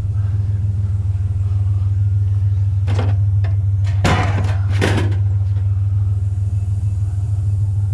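Pickup truck engine running with a steady low rumble, with three short clunks about three, four and five seconds in.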